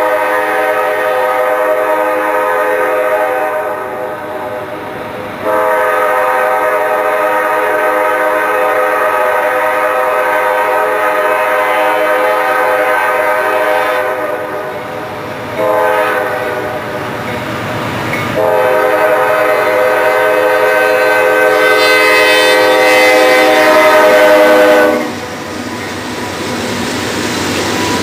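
Multi-note air horn of a CSX coal train's lead locomotive blowing four blasts, long, long, short, long, the grade-crossing signal, as the train approaches. The horn stops near the end, leaving the rumble of the locomotives passing close by.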